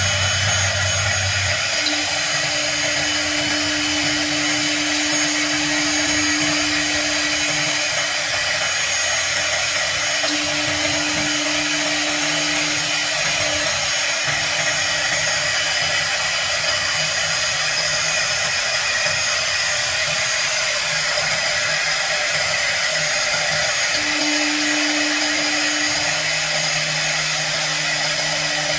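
CNC router spindle running steadily as it cuts acrylic, a dense high whine and hiss, with lower motor hums that come and go every few seconds as the machine moves.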